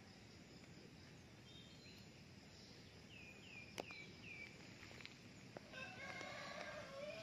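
Faint outdoor quiet in which a small bird chirps four quick falling notes about three seconds in, with a sharp tick among them. Near the end a rooster crows, a pitched call of about a second and a half.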